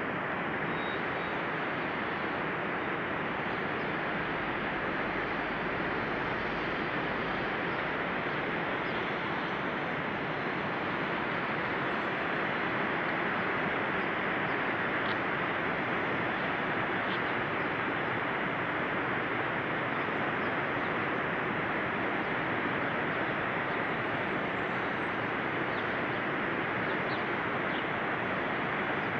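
Steady, even rushing noise that holds one level, with a few faint high ticks.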